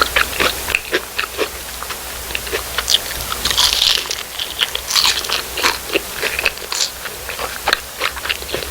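Close-miked biting and chewing of crispy fried food: repeated crisp crunches, denser and crackly about halfway through.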